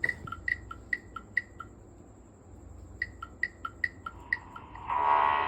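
Short, high two-note chirps played as a sound effect, alternating between a higher and a lower pitch at about four to five a second. They pause for about a second, then resume, and near the end a louder, buzzy sustained tone takes over.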